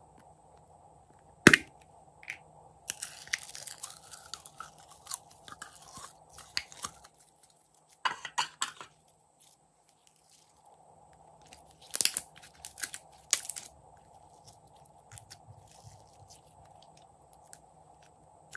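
Red glitter slime being squeezed and stretched by hand, making sticky crackling and squelching sounds in several bursts. A single sharp snap comes about a second and a half in.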